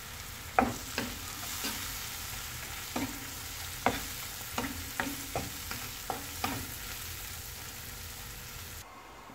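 Prawns sizzling in oil in a nonstick pan while a wooden spatula stirs them, scraping and knocking against the pan about a dozen times over the first six or so seconds. The sizzle carries on steadily and then drops out briefly near the end.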